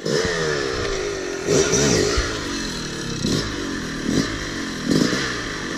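Dirt bike engine running, its pitch falling away over the first second, then revving up and back down in short throttle blips several times.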